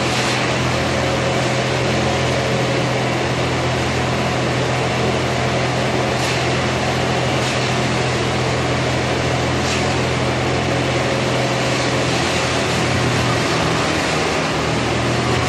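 Heavy machinery's diesel engine running steadily, a constant low hum under a broad even noise, with a few faint ticks.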